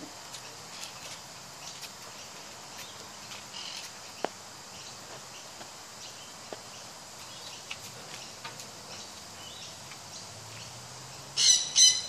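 A lory parrot making short, scattered high chirps, then two loud screeches close together near the end.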